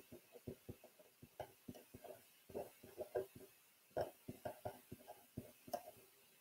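Faint sound of a pen writing on paper: a quick, irregular run of short strokes and taps as words are written out, a little louder about four seconds in.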